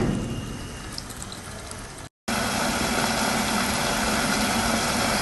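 Creamy spinach-and-chicken curry simmering in a pot on a low flame, a steady sizzling hiss. It is faint at first, drops out briefly about two seconds in, then comes back louder and steady.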